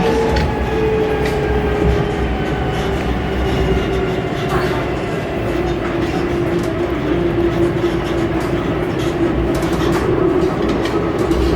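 Melbourne C2-class (Alstom Citadis) tram running between stops, heard from on board: a steady rumble of wheels on rail with an electric traction-motor whine that slowly falls in pitch, and scattered clicks from the track.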